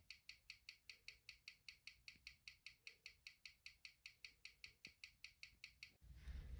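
Waltham model 1908 Riverside pocket watch ticking on a timegrapher, beating at 18,000 beats per hour, an even train of about five short, sharp ticks a second that stops about six seconds in. The balance has low amplitude and a high beat error, and the watch is running fast, gaining close to a thousand seconds a day.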